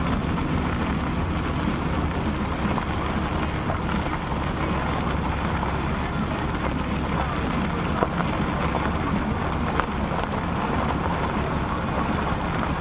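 Steady loud noise, a low rumble under a crackling hiss, with a brief click about eight seconds in.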